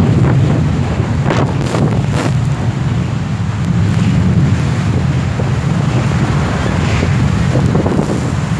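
Jet blast from a departing jet with twin rear-mounted engines hitting the microphone as a steady, loud rush of wind, with the engines' roar beneath it and sand blowing.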